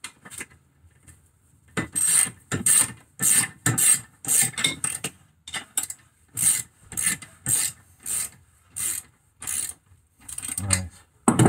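Hand ratchet clicking through short back-and-forth strokes, about two a second with a brief pause midway, as it turns a nut on a rear brake and hub assembly.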